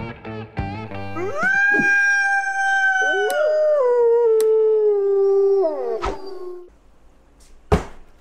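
Guitar music ends about a second in, and a wolf howl follows: it rises, is held for about four seconds, then slides down as a second, lower howl overlaps it. A single sharp click comes near the end.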